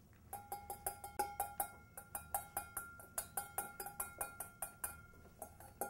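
Rapid, even clinking of a kitchen utensil against a bowl, about four to five strikes a second, each strike ringing briefly, as in beating or stirring a mixture.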